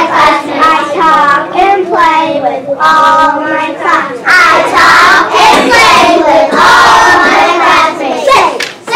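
Children's voices chanting short lines in call-and-response: a child leads a line and a group of children repeats it together.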